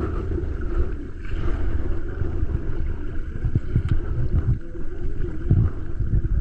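Wind buffeting the microphone: a low, uneven rumble with a hiss above it.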